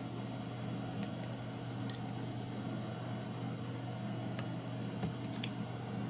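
Steady low hum of room noise, with a few faint light ticks from handling fly-tying materials at the vise: one about two seconds in and a small cluster around five seconds in.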